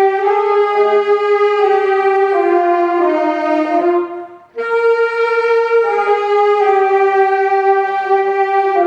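Instrumental introduction to a church choir anthem: held chords with a wind or brass-like sound, changing every second or so, with a short break about four seconds in.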